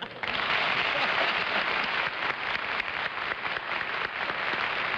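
Studio audience applauding: a dense, even patter of many hands clapping. It breaks out sharply just after the start and thins slightly near the end.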